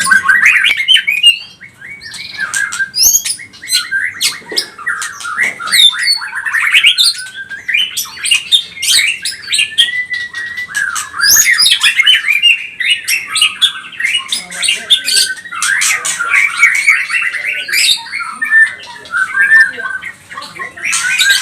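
White-rumped shama (murai batu) singing a long, varied run of quick whistled and swept notes mixed with sharp clicks and harsh chatter, ending with a buzzy rattling trill.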